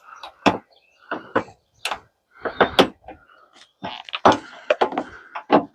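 Irregular clicks, knocks and short scrapes of plastic trim and metal parts being handled and pried loose while working on a car's windshield wiper assembly.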